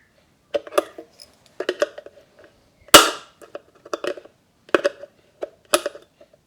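Hard plastic clicks and knocks from a lithium battery pack's casing being handled on a bench, in small clusters about once a second, with one sharp, louder crack about three seconds in.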